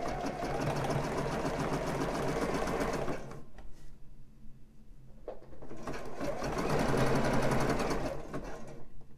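Juki sewing machine stitching elastic onto fabric, running in two spells of about three seconds each with a pause between, and a single click during the pause.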